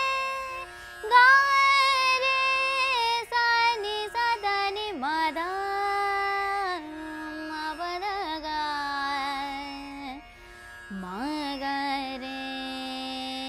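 A woman singing the chalan of Raag Bageshri, Hindustani classical vocal over a tanpura drone. She holds long notes and slides between them, with a short dip in the voice before the last held note.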